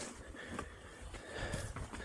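A mountain biker breathing heavily in a steady rhythm, about one breath every second and a half, over the low rumble and small clicks and rattles of the bike rolling on a dirt trail.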